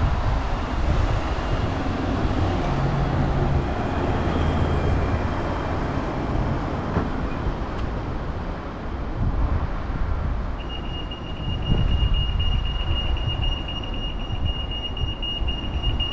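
Road traffic rumbling along a busy street as vehicles pass. About ten seconds in, a pedestrian crossing's high-pitched beeper starts sounding steadily.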